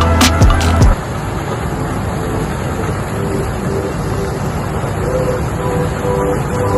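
Background music cuts off about a second in; after it, a Steyr Kompakt tractor runs steadily, a dense, even engine noise.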